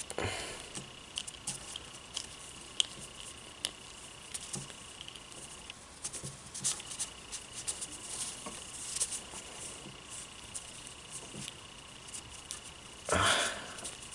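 Small plastic clicks and taps as fingers handle a Hasbro Lightning Collection action figure and fit a blaster accessory into its hand, with a brief louder scuff near the end.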